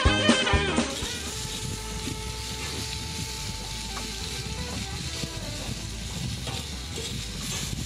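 Music ends about a second in and gives way to steak and sliced onion sizzling on the hot plate of a 316 stainless-steel marine barbecue, a steady hiss with a low rumble underneath.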